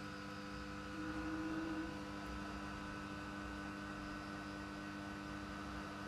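Steady electrical hum made of several held tones, with a slightly louder tone swelling about a second in and fading after about a second.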